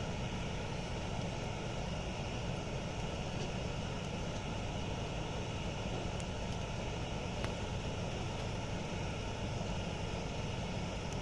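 Campfire burning with a steady low rumble of flames and a few faint pops from the wood.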